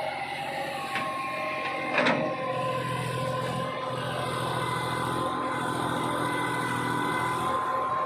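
Massey Ferguson 241 backhoe loader's diesel engine running steadily with a high steady whine over it, and a sharp knock about two seconds in.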